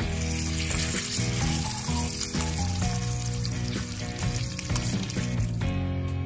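Fish pieces frying in bubbling oil in a small pan: a steady sizzle, with background music playing over it. The sizzle drops away near the end while the music goes on.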